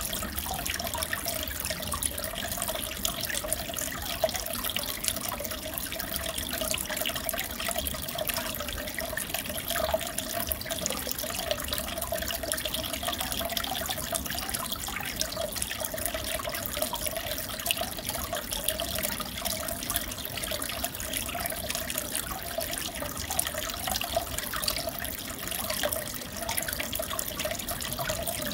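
Aquarium water running and splashing steadily with a fine crackle, over a wavering mid-pitched hum.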